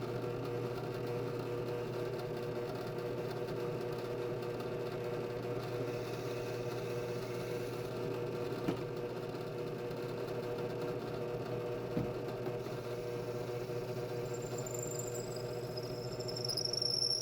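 Steady mechanical hum, like a motor running at a constant speed, with two light clicks partway through.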